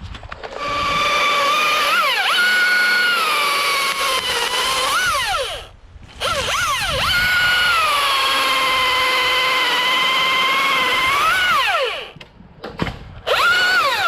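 Gasoline chainsaw running at high revs in three long stretches, its pitch dipping sharply and climbing back several times as the throttle is let off and squeezed again. It drops out briefly twice.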